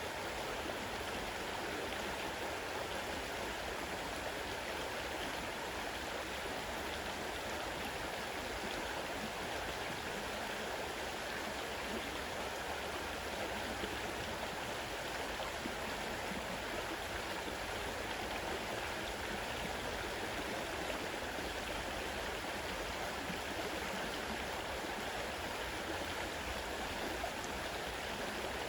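Fast-flowing river water rushing steadily over its bed.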